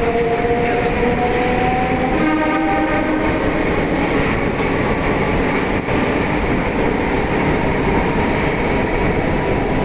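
Electric multiple unit suburban train running: a steady rumble and rail noise, with a whine that rises slightly in pitch over the first few seconds.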